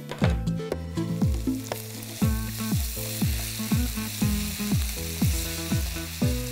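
Julienned vegetables sizzling and being stirred with a wooden spatula in a hot pan on a gas flame. Under it runs background music with a steady deep beat about twice a second.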